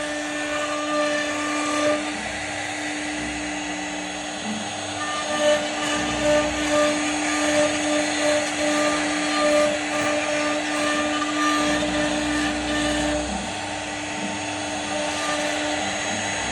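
CNC router spindle running, a steady whine over the noise of the bit cutting into wood. The tone shifts slightly about thirteen seconds in.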